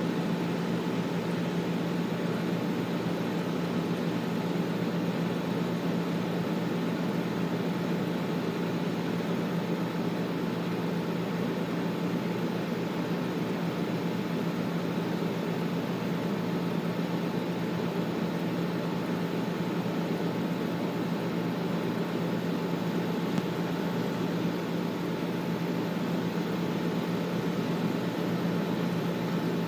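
Air conditioner running steadily: an even whooshing hum with a steady low drone underneath.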